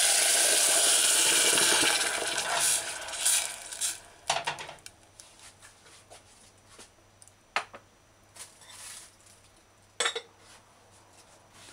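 Onions sizzling in hot oil in a stainless saucepan as coconut milk is poured in; the sizzle is loud for about two seconds, then dies away by about four seconds in once the milk covers the pan. A few light knocks of dishes follow.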